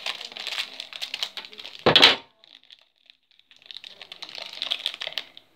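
Small foil-plastic wrapper bag crinkling and crackling as it is cut with scissors, with one thump about two seconds in. After a short pause the wrapper crackles again as fingers pull it open.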